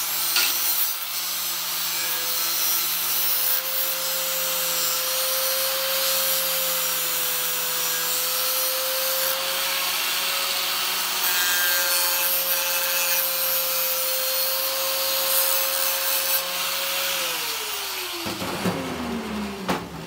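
Handheld angle grinder with an abrasive disc grinding the edge of a sheet-metal panel. It runs steadily with a high rasp over the motor's whine, then is switched off near the end and its whine falls in pitch as the disc spins down.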